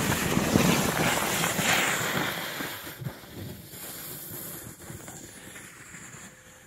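Footsteps crunching through thin snow and a sled scraping over it as it is pushed off downhill, with wind on the microphone. The noise is loudest for the first two seconds or so, then fades as the sled slides away.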